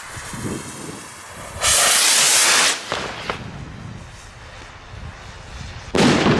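A Klasek 65 g skyrocket launching. Its motor gives a loud hiss lasting about a second as it lifts off, and near the end its burst charge goes off with a sudden bang that rumbles on.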